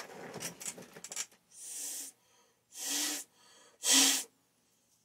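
A second of clicking, rustling handling noise, then three short hisses of spray or air, each about half a second long, the last the loudest.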